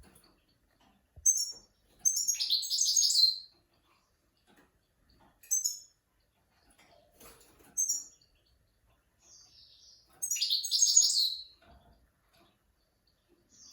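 Goldfinch-type songbird singing a 'switty' song for tutoring young birds: short high chirps alternate with two longer twittering phrases of about a second and a half, with quiet gaps between.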